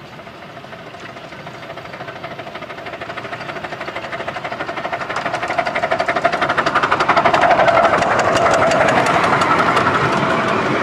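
Miniature steam locomotive hauling a passenger train, its exhaust chuffing in a rapid, even beat that grows steadily louder as it approaches and passes close by. Its coaches start to run past near the end.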